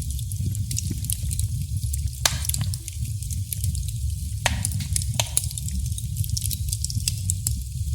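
Wood fire crackling in a fireplace: many irregular sharp snaps and pops over a steady low rumble.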